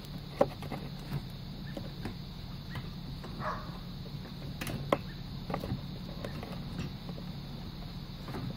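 Plastic fuel pump module knocking, clicking and scraping against the fuel tank opening as it is turned and seated by hand, in scattered irregular taps with a brief scrape near the middle.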